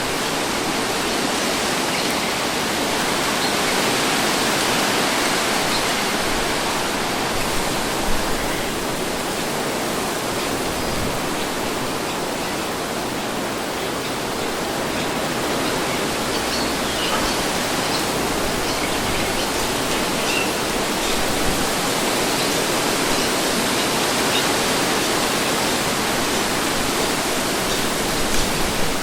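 Steady wind blowing as a breeze, an even rushing that swells slightly a few seconds in and eases again, with a few faint ticks here and there.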